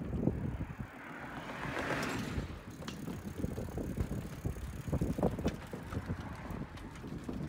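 Bicycle riding along, with wind buffeting the microphone and the low rumble of the tyres. A car passing on the adjacent road swells and fades about two seconds in. Scattered light knocks follow as the tyres cross the wooden deck boards of the bridge.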